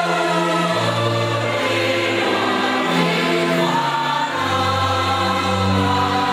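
Church choir singing a hymn together, holding long notes that move to new pitches every second or two.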